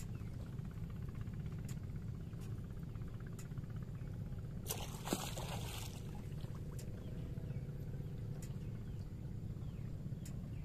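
A hooked giant snakehead splashing at the surface near the boat, once, briefly, about five seconds in, over a steady low rumble with a few scattered light clicks.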